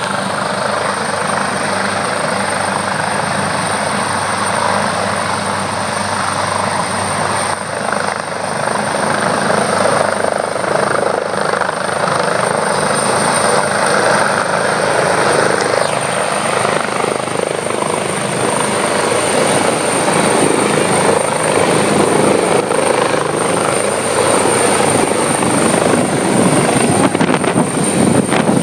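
AgustaWestland AW139 helicopter running close by as it comes in to land: a steady high turbine whine over the beat and rush of its main rotor, growing slowly louder.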